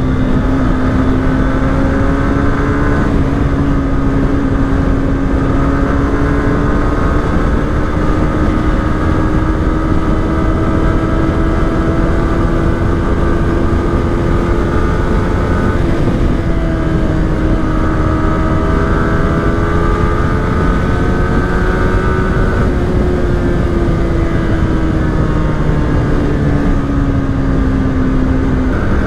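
Yamaha R15 V3's single-cylinder engine running under way at road speed. Its note slowly climbs, dips briefly about halfway through, climbs again, then falls over the last few seconds as the bike slows. Wind rushes over the microphone.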